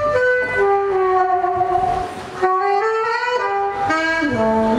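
Saxophone playing a slow melodic phrase of held notes joined by slides, settling on a low held note near the end.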